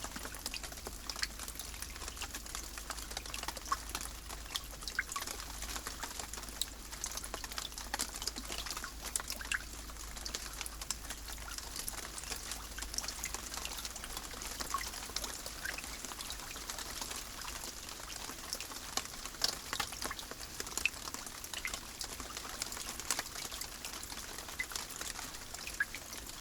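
Steady rain: a constant hiss with many separate drops ticking sharply through it.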